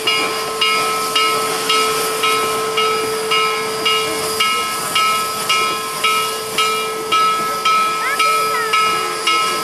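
Bell of 2-8-0 steam locomotive No. 734 ringing steadily, about two strokes a second, over a steady hiss of steam.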